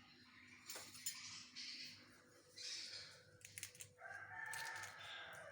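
A rooster crows once near the end, a single drawn-out call lasting about a second and a half. Before it, faint scrapes and a few clicks.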